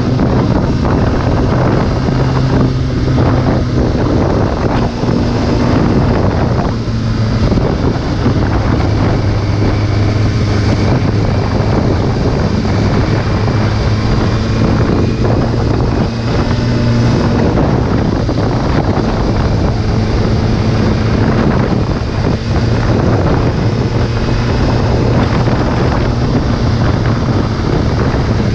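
Sport motorcycle engine running at steady cruising revs under heavy wind noise on the microphone. The engine note shifts slightly a few times.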